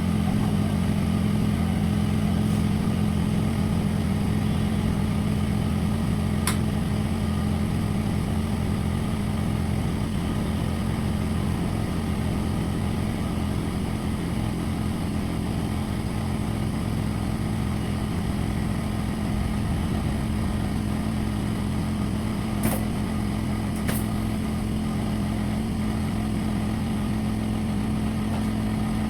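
A steady low motor-like hum with three brief sharp clicks, one about six seconds in and two close together near the end.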